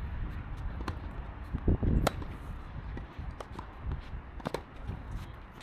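Tennis balls being struck by rackets in a doubles rally: a string of sharp pops with bounces in between, the loudest about two seconds in. A low thud comes just before that loudest hit.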